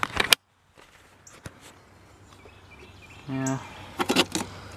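A few light clicks and knocks from an old tube radio chassis and its metal speaker frame being handled, a cluster of them near the end, over faint steady outdoor background noise.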